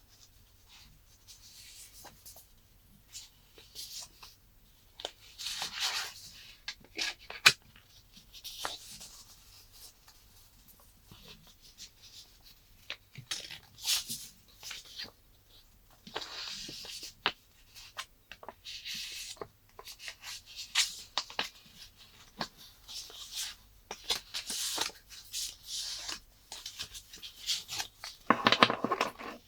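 Hands handling packaging and a phone up close: irregular rustling and scraping swishes, with many small sharp clicks and taps. A longer, louder rustle comes near the end.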